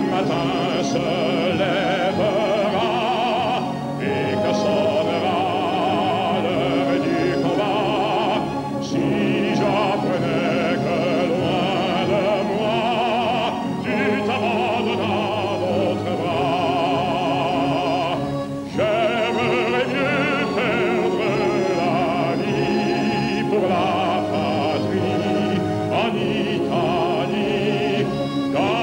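A man singing an operetta number in a full operatic voice with strong vibrato, over orchestral accompaniment. The phrases are broken by short breaths every few seconds.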